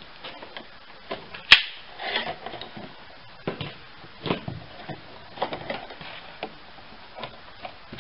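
Handling noise as hands work the prototype masthead halyard lock and the white panel beside it: a sharp click about a second and a half in, then irregular knocks, taps and rustles.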